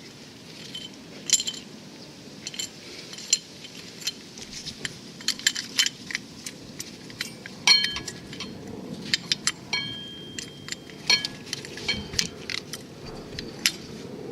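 Metal tools and small metal parts clinking and tapping against each other in irregular sharp clinks, two of which ring on briefly around the middle.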